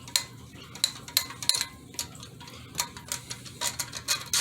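Sharp metallic clicks and clinks, irregularly spaced a few per second, as the quick release and axle nuts of an Ecotric Hammer e-bike's front wheel are taken apart.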